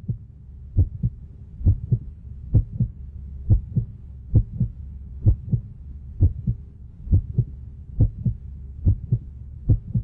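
Heartbeat sound effect: a steady double-thump lub-dub just under once a second, over a low steady hum.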